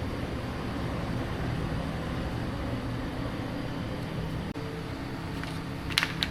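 Steady machine hum with a low drone, then two sharp metallic clinks close together near the end.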